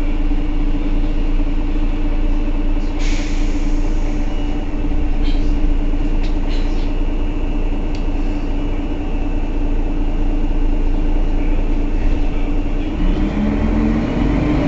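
Mercedes-Benz Citaro city bus's engine idling with a steady hum. There is a short hiss about three seconds in and a few clicks a little later, and the engine note rises near the end.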